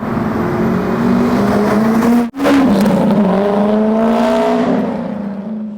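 C5 Corvette's V8 engine running under load, its pitch rising slowly as the car accelerates. The sound drops out briefly about two seconds in, then carries on.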